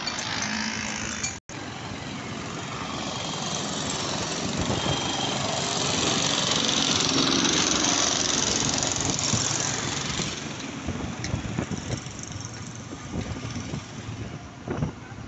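Street traffic noise with vehicle engines running and a rushing noise that swells in the middle and fades after about ten seconds. The sound cuts out for an instant about a second and a half in.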